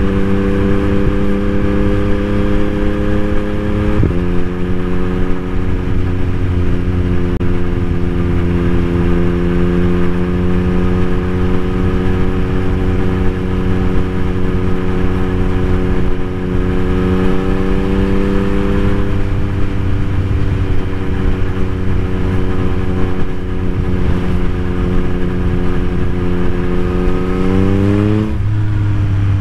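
A 2021 Yamaha MT-09's 890 cc inline three-cylinder engine, breathing through an Akrapovic carbon full exhaust system with no dB killer, runs at a steady engine speed while the bike cruises. Near the end the engine note rises quickly as the bike accelerates, with one brief break that marks a gear change.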